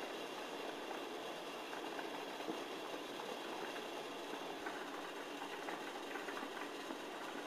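Steady background noise: an even hiss and hum with faint scattered ticks, and no clear event.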